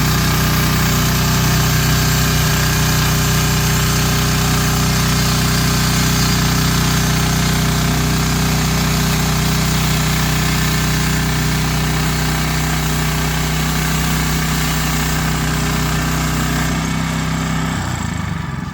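Hudson portable sawmill running, its engine working steadily while the blade cuts through a white birch log, with a dense rasping hiss over the engine note. Near the end the cutting hiss falls away and the engine note drops.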